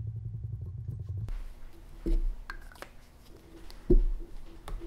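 Small electric drive motor of a commutator lathe spinning a motor armature with a steady low hum, cutting off sharply about a second in. Then tools handled on a workbench: two loud knocks and a few light clicks.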